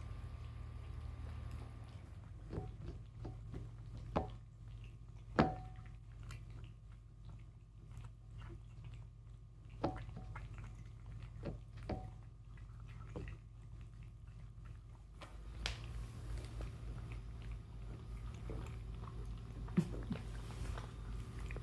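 Cats eating from their food bowls: chewing and biting with sharp little clicks now and then.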